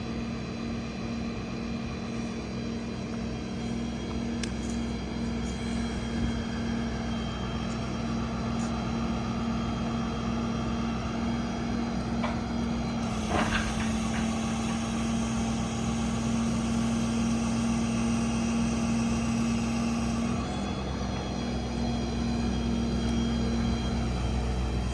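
Ford 6.7-litre Power Stroke V8 diesel engine running steadily with an even hum, and a brief knock about thirteen seconds in.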